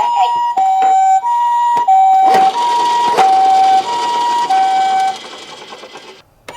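Toy ambulance's electronic siren sounding the Japanese two-tone ambulance pattern, a high note and a slightly lower note alternating about every two-thirds of a second, with a few clicks and knocks. It stops a little after five seconds in.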